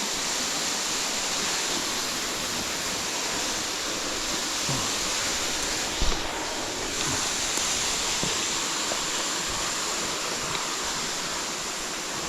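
Steady rush of falling water from a waterfall, with a brief knock about six seconds in.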